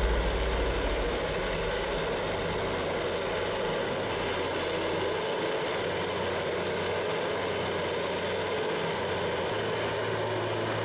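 Vermeer HG6000 horizontal grinder running steadily: an even engine drone with a constant low hum. The hum steps up slightly in pitch near the end.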